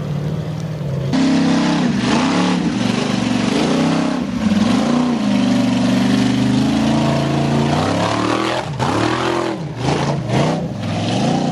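Formula Offroad buggy's engine revving hard under full throttle. It gets louder about a second in, then the pitch drops and climbs again several times as the throttle is let off and opened, most often in the last few seconds.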